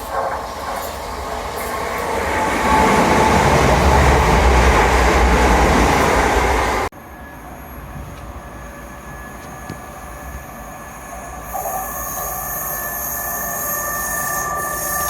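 A train passing close by with loud wheel and rumble noise that builds over the first few seconds. About seven seconds in it cuts off suddenly to a quieter train scene with a steady high-pitched squeal.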